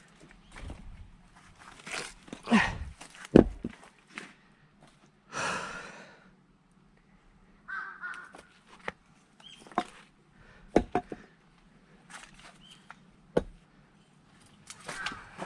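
Firewood being split by hand: a series of sharp blows on wood at irregular intervals, the loudest about three seconds in, with shuffling between strikes.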